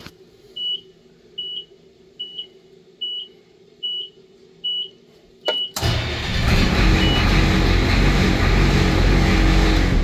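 A warning chime beeps steadily about once every 0.8 s, seven times, while the glow plug wait-to-start lamp is lit. About six seconds in, the 7.3 IDI V8 diesel is cranked hard on its starter. The loud cranking lasts about four seconds, then stops.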